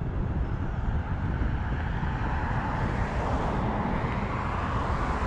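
Street traffic: a passing car's tyre noise swells over the last few seconds, over a steady low rumble of wind on the microphone.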